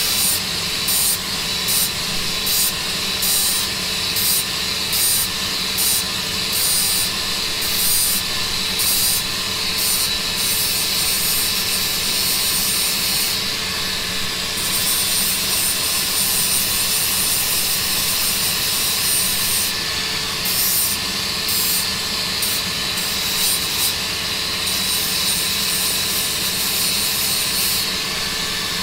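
Hand saw cutting through a 2-inch plastic water pipe: back-and-forth strokes, about two a second, which stop for several seconds in the middle and then start again. A steady engine hum runs underneath.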